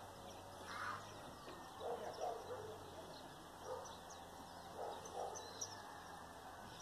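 Several faint, short animal calls, some coming in pairs, over outdoor background with faint high bird chirps.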